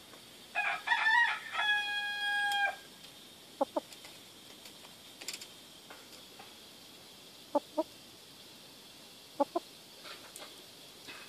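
A rooster crows once: a call of about two seconds that ends in a long held note. Later come three pairs of short, low chicken clucks, spread a few seconds apart.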